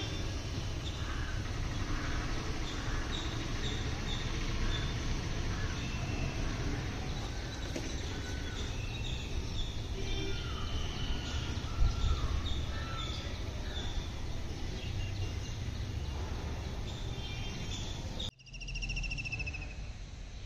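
Outdoor ambience: many birds chirping and calling over a steady low rumble, with a brief knock about halfway through. Near the end the sound cuts to a quieter scene with a repeated high, trilling call.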